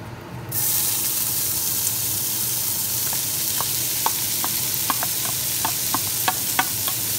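Diced onions and shallots dropping into hot bacon fat in a stainless steel pot: a sizzle starts suddenly about half a second in and holds steady. From about three seconds in, a series of light knocks and clinks as a wooden spoon scrapes the rest out of a metal bowl.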